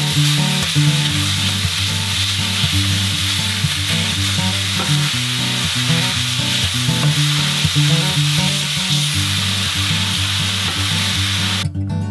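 Ground sausage sizzling as it fries in a cast-iron skillet, stirred and broken up with a wooden spatula; the sizzle cuts off near the end. Acoustic guitar music plays underneath.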